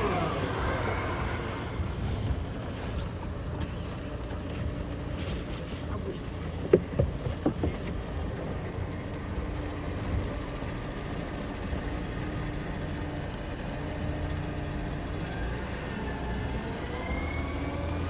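Garbage truck's diesel engine running as the truck drives slowly past at close range, a steady low drone. A few sharp knocks come about seven seconds in.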